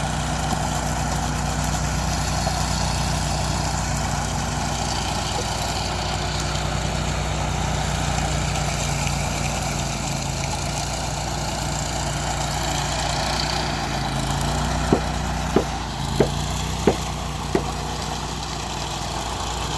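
Riding power trowel's engine running steadily as it finishes a concrete slab. Near the end come five sharp knocks about two-thirds of a second apart.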